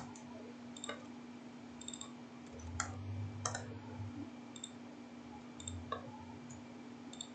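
Sparse computer mouse and keyboard clicks while code is being edited: about ten short, sharp clicks at irregular intervals, roughly one a second, over a faint steady electrical hum.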